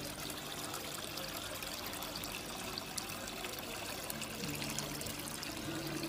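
Water falling and splashing steadily from a homemade cement indoor waterfall fountain into its basin.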